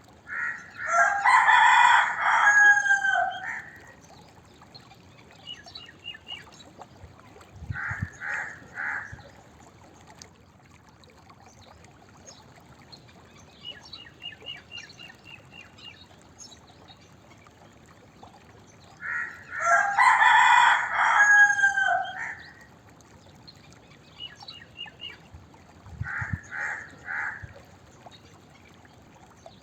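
Rooster crowing twice: a long cock-a-doodle-doo about half a second in and another about twenty seconds in. Between the crows come short clucking calls of three quick notes each.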